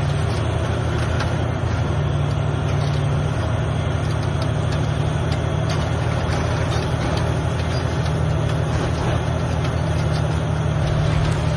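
Large crawler bulldozer's diesel engine running steadily under load, with a deep, continuous drone. The low note eases a little about three seconds in and builds again near the end.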